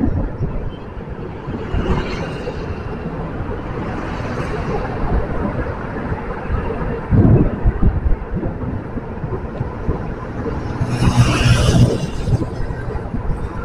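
Steady road and traffic noise heard while riding along a city street, with wind buffeting the microphone in low thumps about halfway through. A louder rushing swell comes near the end as a motorcycle passes close by.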